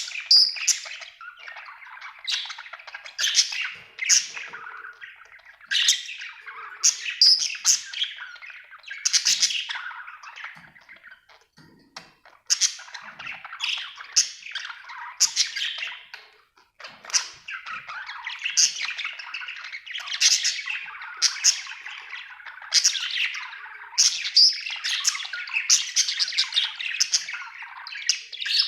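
Budgerigar chirping and chattering almost without pause, a busy run of quick, high chirps and squawks, with two short lulls partway through.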